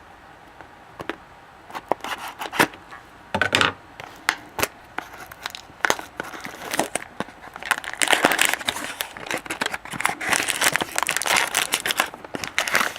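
Cardboard hobby box of hockey cards being opened and its foil pack handled and torn, with sharp clicks and crackles, growing into dense crinkling from about eight seconds in.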